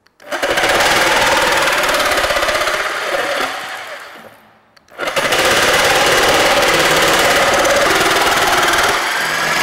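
Electric jigsaw cutting relief cuts into plywood: two runs of the motor and blade sawing, the first fading out about four seconds in and the second starting about a second later.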